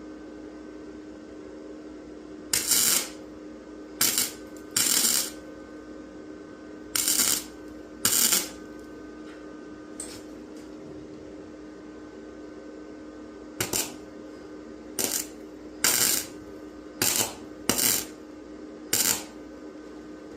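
Welder laying short tack welds on a sheet-metal cab-corner patch: eleven brief crackling-hiss bursts, each under a second, in two clusters with a pause of about five seconds between them. A steady hum runs underneath throughout.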